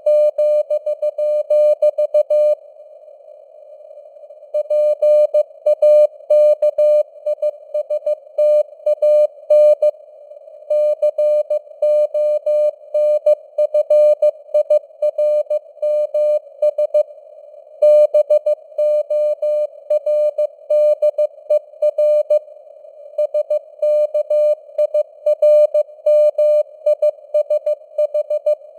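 Morse code (CW) sent at 15 words per minute as a single-pitched beeping tone keyed in quick dots and dashes, with short pauses between groups. A narrow band of hiss around the tone simulates radio noise, and the signal strength rises and falls (QSB).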